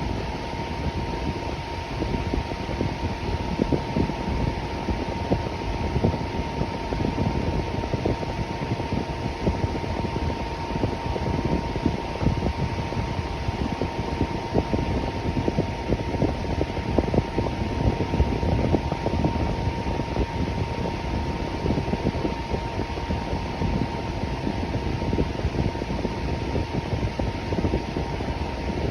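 Electric fan running steadily: an even rushing whir of moving air with a fine flutter and a thin, steady whine held throughout.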